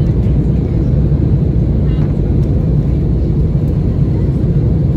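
Steady cabin noise inside an Airbus A321-211 in flight on its descent: an even, deep rumble of its CFM56 jet engines and the air rushing past the fuselage, with no change in pitch or level.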